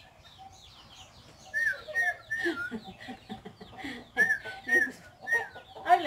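A run of about six short, wavy whistled notes, mixed with lower clucking bird calls.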